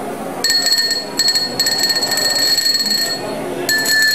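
A small handheld battery-powered spinning gadget pressed against drinking glasses, setting the glass buzzing and ringing with a high, bell-like rattle. It comes in several bursts: a short one about half a second in, a longer one of about a second and a half, then a break and another burst near the end.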